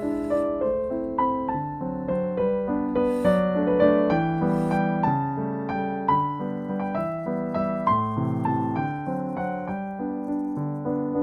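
Background piano music: a gentle melody of single notes over chords.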